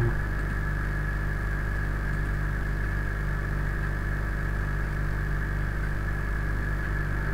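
Steady electrical hum with several fixed tones and a thin hiss, unchanging, with no other sound.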